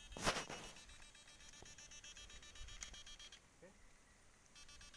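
Backpack electrofishing unit giving a fast, even electronic pulsing buzz. The buzz cuts off a little after three seconds and starts again about a second later. A sudden loud noise about a quarter second in is the loudest sound.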